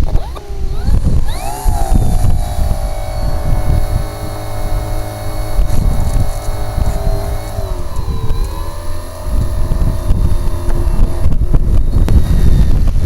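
Multiplex FunCub model plane's electric motor and propeller spinning up to a steady whine. It dips briefly and picks up again a little past halfway, then cuts off near the end. Strong wind buffets the microphone throughout.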